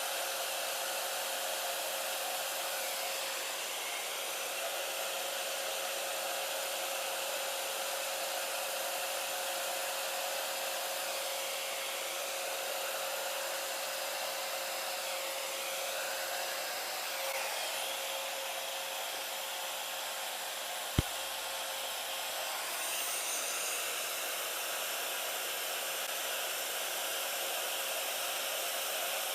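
Hair dryer blowing steadily, with a constant motor whine under the rush of air; the airflow shifts a little now and then. A single sharp click about two-thirds of the way through.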